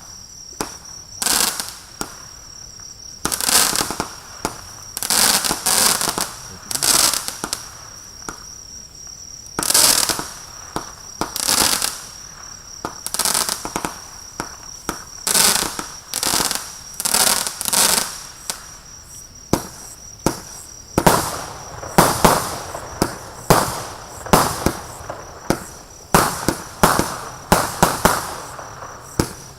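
An 82-shot 'Street Fun' firework battery firing, its shots going off one after another, each a sharp bang fading into a short hiss. The shots come a second or two apart at first, then in quicker succession from about two-thirds of the way through.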